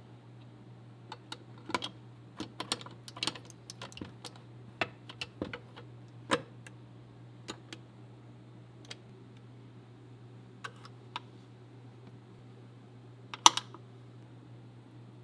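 Small metal parts of an SKS rifle clicking and tapping against each other and the wooden stock as they are handled and fitted. There is a quick run of sharp clicks in the first six seconds, then scattered ones, and a loudest sharp metallic snap near the end.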